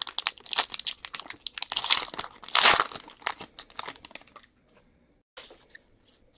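Foil wrapper of a Panini Prestige football card pack crinkling and tearing open in gloved hands, loudest about two and a half seconds in, then a few light rustles as the cards come out.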